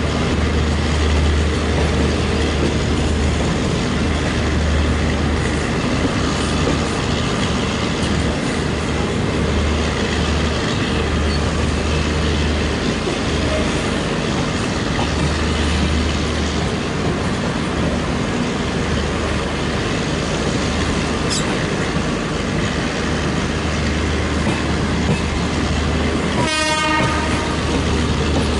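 A train rolling slowly with a steady rumble and wheel clatter. Near the end, the WAP-7 electric locomotive gives one short horn blast to warn a dog off the track.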